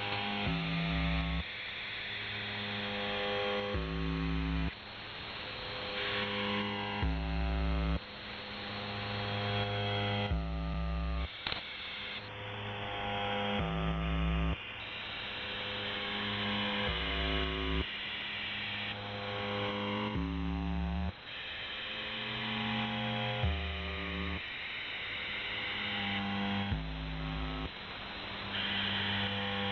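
Shortwave radio reception of the UVB-76 channel on 4625 kHz: a steady hiss with a run of held pitched tones on top, changing every second or two like slow music.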